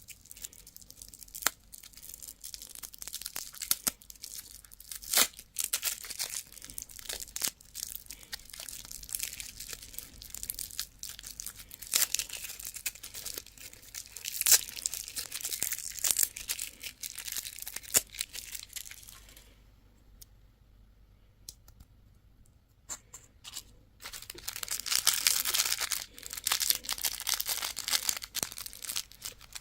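Candy wrappers being torn open and crinkled by hand, with sharp crackles and clicks. There is a brief pause about two-thirds of the way through, then a stretch of steady crinkling.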